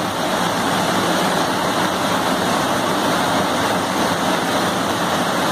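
Fast floodwater rushing steadily across and over the edge of a submerged bridge, a loud, even roar of water.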